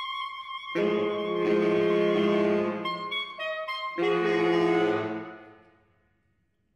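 Saxophone quartet playing the closing bars of a piece: a held note, then a loud sustained chord about a second in, a few short notes, and a final loud chord that fades away near the end.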